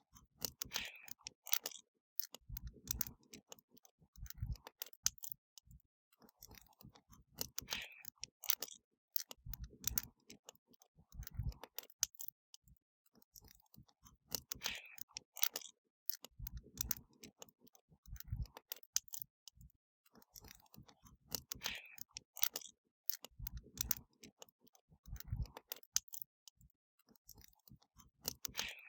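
Wood fire crackling and popping: scattered sharp crackles with occasional low thumps, the same pattern repeating about every seven seconds, as in a short looped recording.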